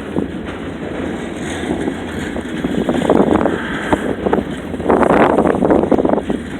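Gale-force wind buffeting the microphone in a snowstorm, with two strong gusts about three and five seconds in.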